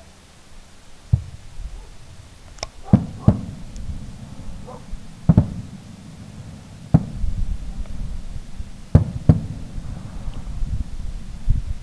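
Aerial firework shells bursting: a series of about eight sharp bangs at uneven intervals, some in quick pairs, each trailing off into a low rumble.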